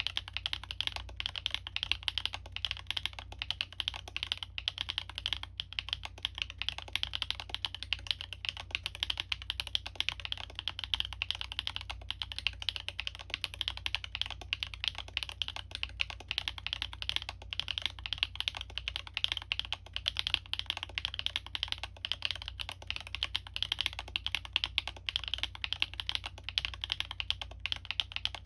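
Continuous fast typing on a Libra Mini custom mechanical keyboard with stock Gateron x Siliworks Type R switches, an aluminium plate and PBT keycaps: a dense, even stream of keystroke clacks with no pauses.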